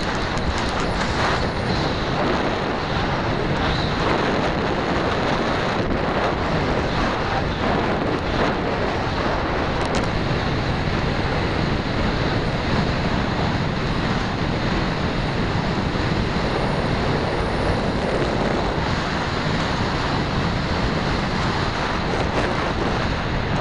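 Steady rush of wind over the microphone of a small camera worn on the back of a peregrine falcon in flight.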